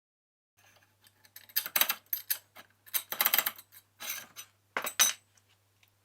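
Steel bars of a homemade pipe-clamp mechanism worked by hand, the inner bar sliding in the outer one with metal-on-metal clanking and scraping in several bursts. The loudest clank comes about five seconds in.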